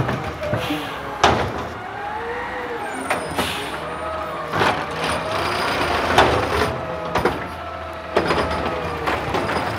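McNeilus automated side-loader garbage truck running while its hydraulic arm grips a wheeled trash cart, lifts it and tips it over the hopper. A whine rises and falls as the arm moves, with several sharp knocks and bangs as the cart is grabbed and shaken out.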